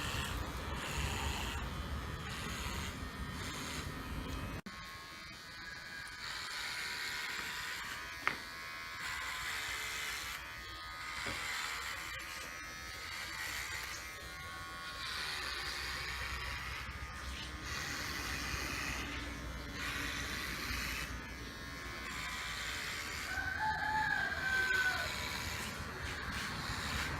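Cordless dog hair clipper with a ceramic upper blade, buzzing steadily as it trims fur; the buzz shifts in tone as the blade moves through the coat. There is a sharp click about eight seconds in and a short call that bends up and down in pitch near the end.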